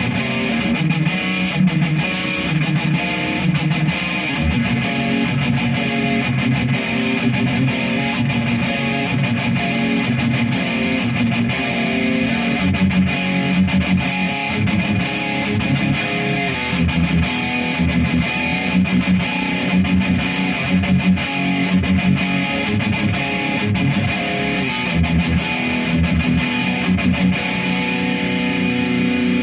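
Distorted electric guitar riffing through a Marshall amp, shaped by a Futile Art FX Chainsaw EQ pedal (an HM2-style EQ with no gain stage of its own), playing continuously with heavy low notes.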